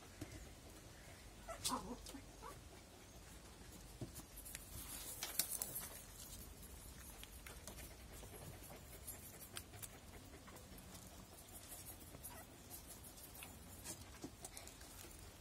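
Newborn Spitz puppies giving a couple of short, faint squeaks, with scattered clicks and a brief rustle about five seconds in.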